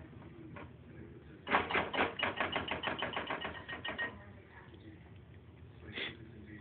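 Whisk beating brownie batter in a mixing bowl, rapping the bowl in a quick, even run of about eight clicks a second for two and a half seconds, then one more knock near the end.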